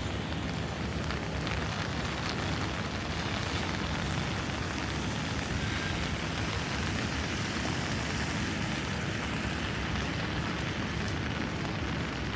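Steady rain falling on a city street, with a low, steady rumble of traffic underneath.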